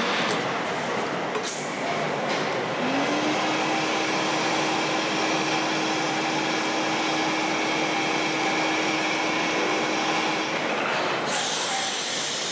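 Steady rushing noise of a glassblowing shop's furnaces and fans. A steady hum comes in about three seconds in and stops near eleven, and the noise turns brighter shortly after.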